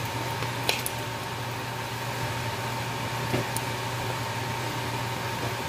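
Soy-sauce broth simmering in a wok around blocks of rice-vermicelli noodles, with two light knocks of a wooden spatula against the noodles and pan. A steady low hum runs underneath.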